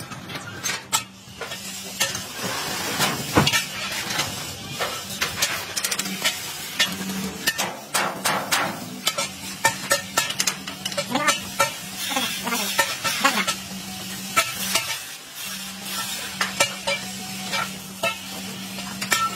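Electric arc welding on a steel tube frame: the arc crackles and sizzles in irregular spurts, with a steady hum underneath.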